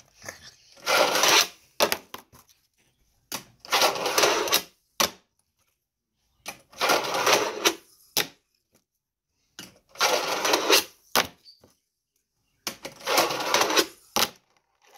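A fingerboard's small wheels rolling across a miniature halfpipe ramp in five runs about three seconds apart, each lasting under a second, with sharp clicks of the board snapping and landing between them.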